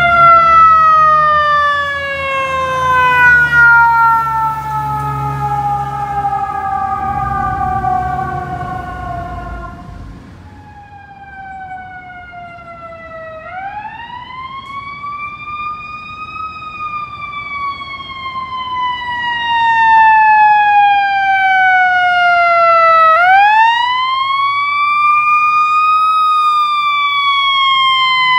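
Fire truck sirens. First a siren winds slowly down over a heavy truck engine's low rumble, which fades by about ten seconds in. Then, after a short lull, an approaching fire truck's siren wails twice, each cycle rising quickly and falling slowly, growing louder.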